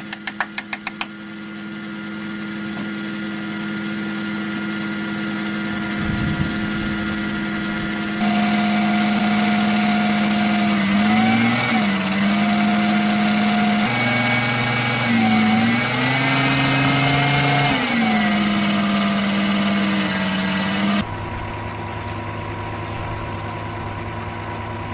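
A machine's motor running with a steady hum and a rapid ticking in the first second. It gets suddenly louder about eight seconds in, its pitch dipping and recovering several times as if under load, then drops back to a quieter steady hum near the end.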